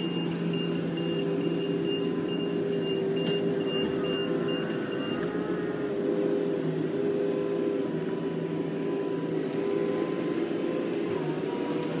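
Engine running steadily at an unchanging speed, with a thin high beeping over it for the first five seconds.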